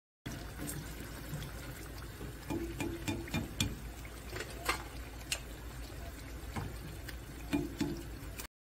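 Battered eggplant strips deep-frying in a pot of hot oil: a steady sizzle with scattered sharp pops and crackles.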